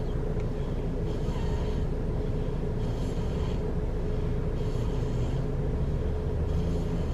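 Air conditioner running: a steady rumbling noise with a constant low hum.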